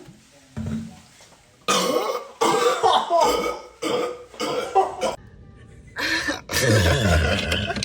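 Repeated loud bursts of coughing and belching from a person who has just gulped fizzy Sprite. The longest and deepest comes near the end.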